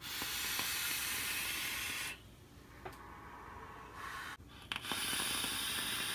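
Two long draws on a vape's rebuildable dripping atomizer: a steady hiss of air and vaporizing e-liquid through the airflow, about two seconds each time. The second draw starts about two-thirds of the way in, just after a couple of faint clicks.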